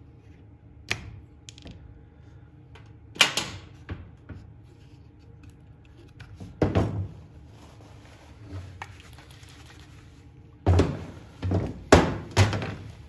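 Knocks and clatter from the red plastic body of a chainsaw being handled and shifted about by hand: single knocks spaced a few seconds apart, then a quick run of four near the end.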